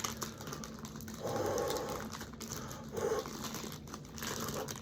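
Plastic wrapper of a convenience-store egg sandwich crinkling and crackling as it is pulled open by hand.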